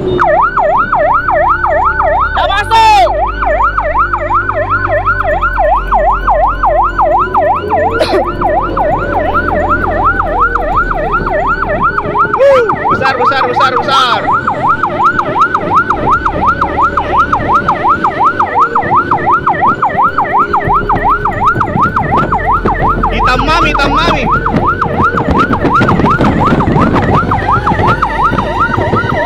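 Fire truck siren in a fast yelp, its pitch sweeping up and down about three times a second, with a low rumble underneath.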